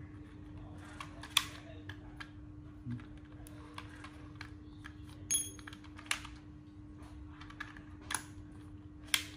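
Sharp plastic clicks and knocks, about five in all, from a corded two-mode hammer drill being handled and its controls worked, with its motor not running. A faint steady hum lies underneath.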